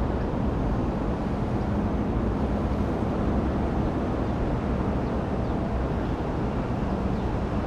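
Steady low outdoor background rumble with a faint hum that comes and goes.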